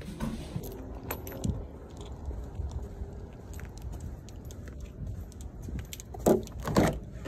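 A bunch of keys on a keyring jangling in the hand while walking, with two louder jingles near the end.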